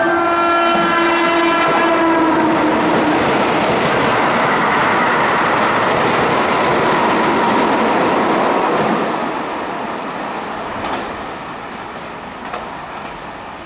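Keihan 13000-series electric train sounding its horn near the start, then passing at speed with loud running noise from wheels and rails that fades after about nine seconds.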